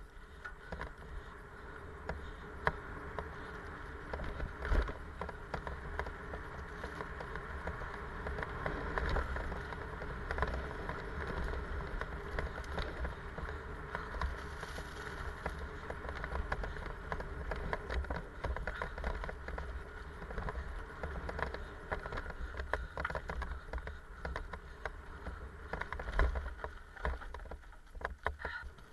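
Mountain bike riding fast down a dirt forest trail: steady tyre noise on dirt and fallen leaves, with frequent rattles and knocks from the bike over bumps, and a low wind rumble on the microphone.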